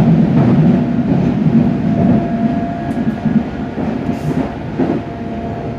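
London Underground District line train heard from inside the carriage as it runs between stations: a loud low rumble with a steady whine and occasional clicks from the wheels over the rails.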